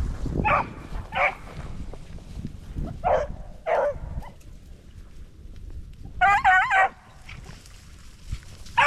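Beagles baying on a rabbit's scent: several single bays in the first four seconds, then a louder run of wavering bays about six seconds in. Wind rumbles low on the microphone throughout.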